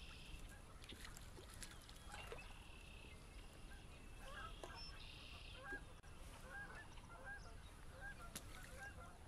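Faint geese honking in a repeated run of calls through the second half, over other birdsong and a low wind rumble.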